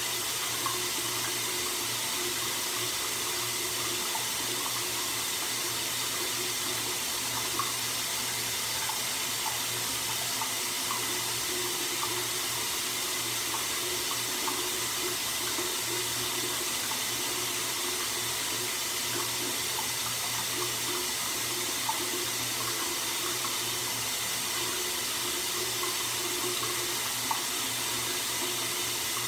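Water running steadily in a bathroom, a constant even hiss that does not change.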